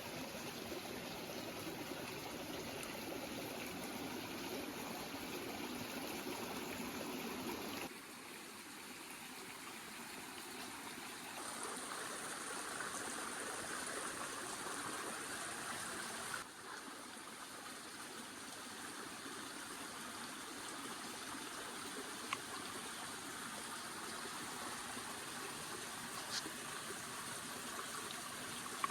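Running water with a steady rushing sound, like a stream. Its tone shifts abruptly twice, about eight seconds in and again about sixteen seconds in.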